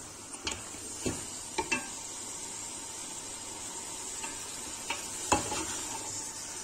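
Beef shank bones sizzling in hot oil with browned onions in a pressure cooker while being stirred. The spatula knocks and scrapes against the pot about six times. The bones are being seared until they change colour.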